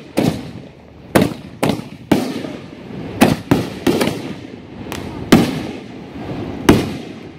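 Fireworks going off: about nine sharp bangs at uneven intervals, some coming in quick pairs, each with a short echo.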